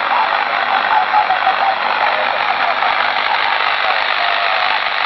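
Tecsun shortwave receiver's speaker tuned to 3818 kHz in single-sideband mode on the 80 m band: steady static hiss with a faint, garbled sideband voice under it.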